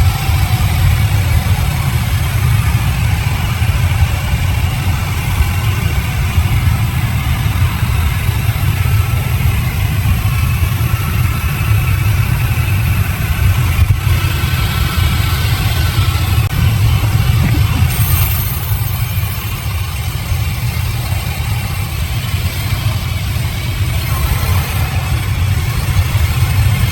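Sawmill machinery's engine running steadily with a low rumble.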